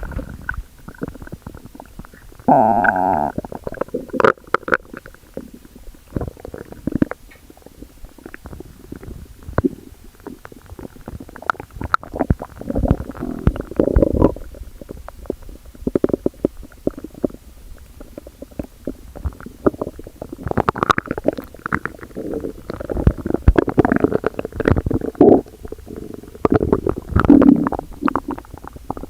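Stomach growling: irregular gurgles and rumbles with short quiet gaps between them. A loud, pitched squeaky growl comes about three seconds in, and the gurgling grows busier and louder in the last third.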